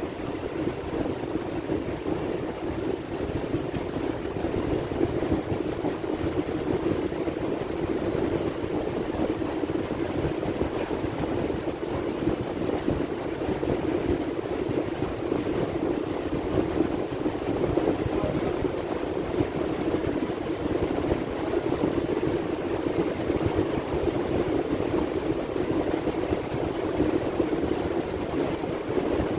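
Wind tunnel running: a steady rush of air, growing slightly louder as the airspeed is turned up.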